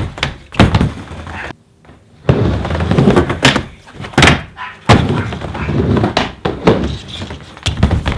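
Skateboard rolling on a wooden miniramp: a steady wheel rumble broken by sharp clacks as the trucks and board hit the metal coping and the deck.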